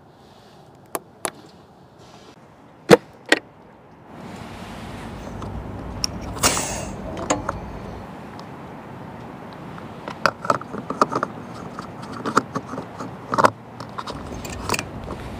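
A Bentley's screw-in fuel filler cap being handled and turned in its neck: a run of irregular plastic-and-metal clicks over a steady outdoor background. Before it come a few sharp single clicks, the loudest about 3 s in, and a brief hiss about 6.5 s in.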